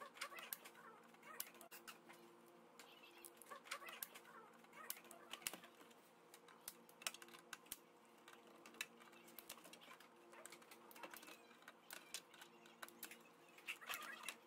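Faint irregular clicks, taps and scrapes of a hand tool and fingers working at the plastic back casing and stand of an LCD monitor, over a steady low hum.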